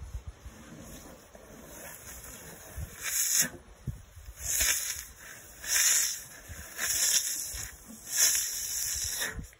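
Asian elephant's trunk sucking at the melting surface of a frozen watermelon popsicle: five airy sucking draws, each about half a second long and about a second apart, starting about three seconds in.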